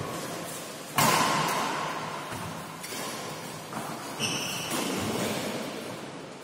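Badminton rackets striking a shuttlecock during a rally: several sharp cracks that echo around a large hall, the loudest about a second in. A short high squeak comes about four seconds in.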